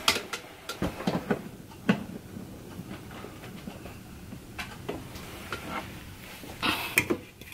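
Scattered clicks and knocks of plastic kitchenware being handled and set down as the parts of a Magic Bullet blender are taken out, with a cluster of knocks near the end.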